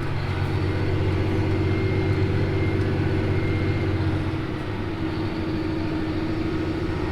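Heavy diesel farm machinery running steadily with a low engine hum; about four seconds in, the low part of the sound drops off and shifts.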